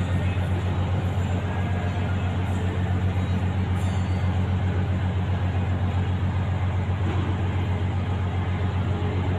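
Steady low drone of an engine running, with a rushing hiss over it and no change in level.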